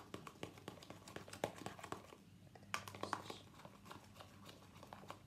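Freshly activated glue slime being mixed and worked, giving faint, irregular sticky clicks and crackles as the glue, shaving foam and borax mixture sets.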